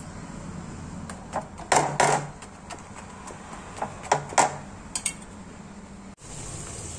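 A metal spoon clinking and scraping on a ceramic plate while it is worked over a paratha: a few sharp clinks about two seconds in, more around four seconds in and one near five, over a steady low hum.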